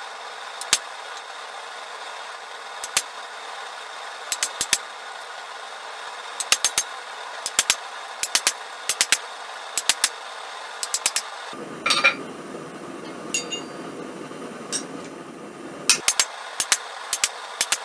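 Hammer blows on mild steel over an anvil, struck in irregular groups of quick, ringing strikes over a steady hiss.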